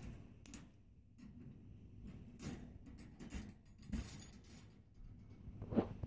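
Small metallic clicks and rattles: a carabiner clipped on a wire dog crate's door latch clinking against the wire bars and latch, busiest in the middle, with a short duller knock near the end.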